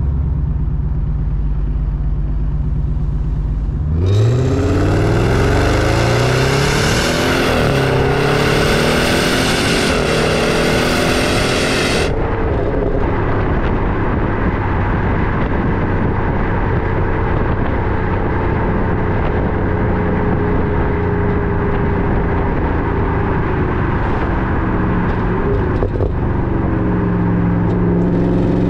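2016 Audi S8's twin-turbo V8 through a titanium aftermarket exhaust, running low at first. About four seconds in it accelerates hard, its pitch climbing and dropping back several times as it shifts up, for about eight seconds. It then settles into a steady cruise with road noise and picks up again near the end.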